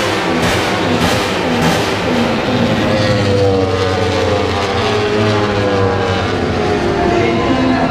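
Racing motorcycle engines, one falling steadily in pitch over several seconds, mixed with background music with a steady beat.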